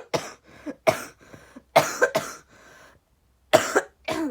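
A person coughing repeatedly in a fit of about six sharp, loud coughs spread over a few seconds.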